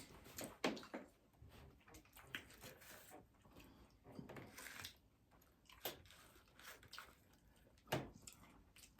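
Faint chewing of crunchy hard-shell tacos: scattered soft crunches and mouth clicks, the most distinct about eight seconds in.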